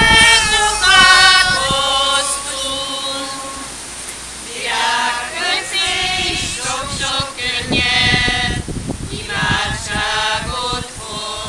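A small group of women singing a Hungarian memorial song together, with long held notes at first, a short pause about four seconds in, and then the next lines.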